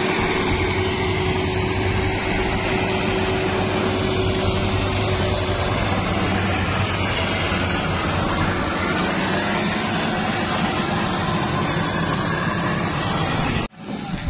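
Maxxi Bimo NDR 102L crawler rice combine harvester running close by as it harvests, a loud steady machine din with a constant low hum and, for the first half, a steady higher whine. Near the end it cuts off abruptly to a much quieter, more distant machine sound.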